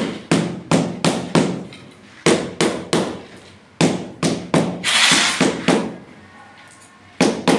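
Rubber mallet tapping a large ceramic floor tile down into its mortar bed to set it level: sharp knocks in runs of about four, roughly three a second, with short pauses between runs. A short scrape of a shovel in sand about five seconds in.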